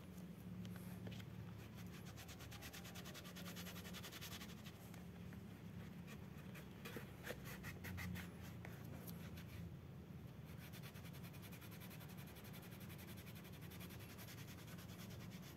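A cloth rubbing a screen-printed decal off a bicycle saddle: faint scratchy strokes, denser in the middle of the stretch, with a few small clicks, over a steady low hum.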